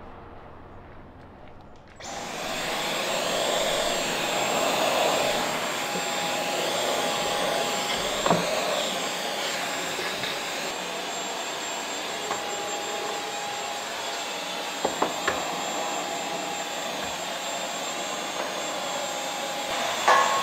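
Vacuum cleaner switching on about two seconds in and running steadily, with a few light knocks along the way.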